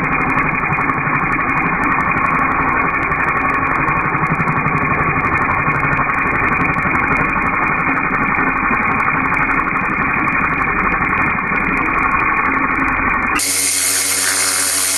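Pressure washer running steadily, muffled, with its high end cut off. About thirteen seconds in it switches abruptly to a brighter, fuller machine sound with steady tones.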